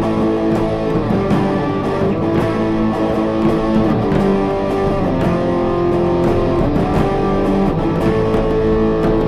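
Background music led by guitar, with held chords and a steady beat.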